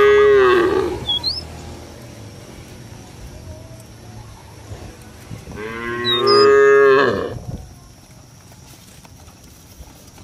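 Cattle mooing twice: one call at the start lasting about a second, and a longer one about six seconds in.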